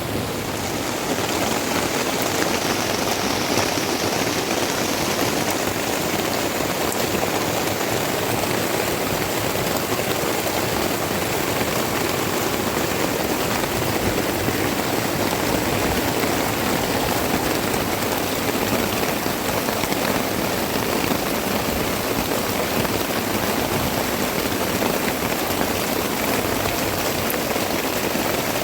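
Heavy rain pouring steadily, a dense even hiss of drops hitting surfaces.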